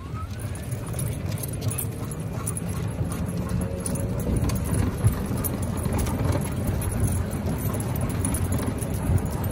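Metal leash clips and collar hardware jingling on two huskies running on leash, with their quick footfalls, over a steady low rumble of wind and handling noise on a handheld microphone moving at a run.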